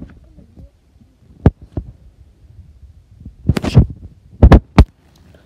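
Several loud, irregular thumps and knocks, one about a second and a half in, a cluster near the middle and two close together near the end: the phone and its microphone being jolted while running.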